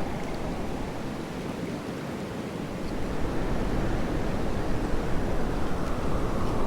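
Blizzard wind blowing as a steady rush of noise, easing off about a second in and building again from about three seconds.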